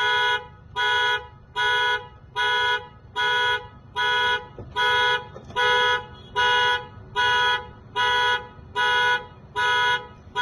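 Car horn blaring in steady pulses, about one and a quarter blasts a second, as the 2014 Toyota Camry's anti-theft alarm goes off after the door is forced without a key.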